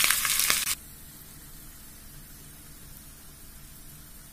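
Sliced shallots, curry leaves and dried red chillies sizzling and crackling in hot oil for under a second, then cut off abruptly, leaving a faint steady hiss.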